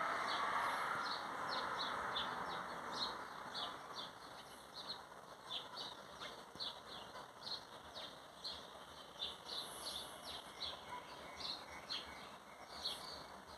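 Small birds chirping: a steady run of short, high chirps, about two or three a second. A broad rushing background noise fades away over the first few seconds.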